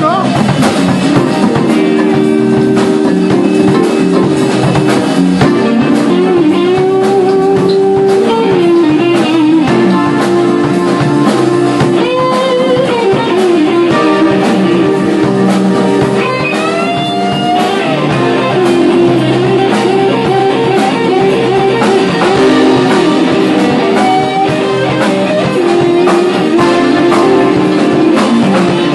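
Live blues-rock band playing an instrumental passage: a lead guitar line with bent notes over guitars and drums.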